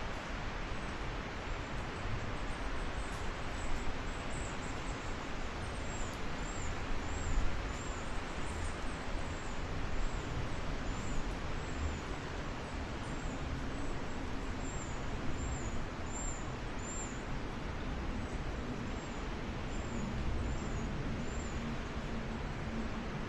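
Wind rustling through a tree's leaves, with a gusty low rumble of wind. A small bird repeats short, very high, thin notes, about one or two a second, from several seconds in until near the end.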